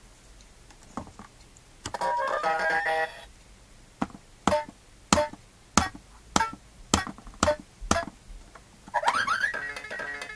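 Sainsbury's electronic light-up toy drum: a short synthesized jingle plays, then a hand taps the drum pad about eight times in a steady beat, each tap setting off a short electronic drum sound. Near the end an electronic tune starts up.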